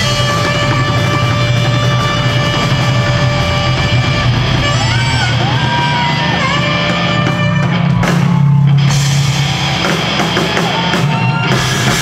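Live ska band playing loud and steady: electric guitars, bass and drum kit, with held melody notes over them.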